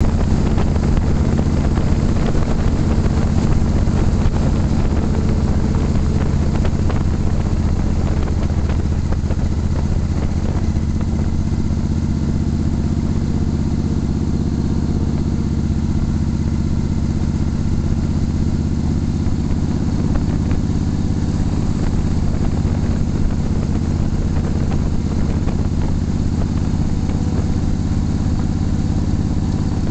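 Motorcycle engine running with a steady note while riding at road speed, with wind and road hiss over it; the hiss is heavier in the first third.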